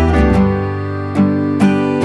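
Background music: an acoustic guitar picking notes and chords, a new one about every half second.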